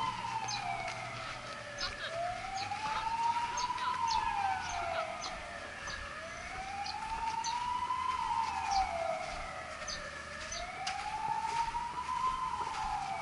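A siren wailing, its pitch rising and falling slowly about every four seconds.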